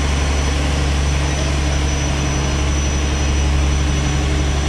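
A fishing boat's inboard diesel engine running steadily: a continuous low drone with a thin, steady high whine over it.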